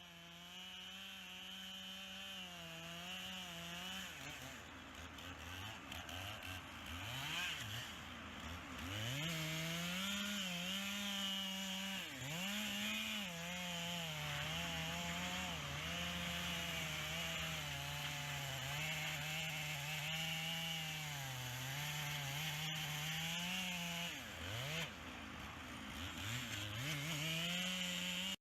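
Two-stroke chainsaw running and cutting wood, its engine note sagging and picking up under load. Twice, about a third of the way in and again near the end, it revs up quickly from a lower speed.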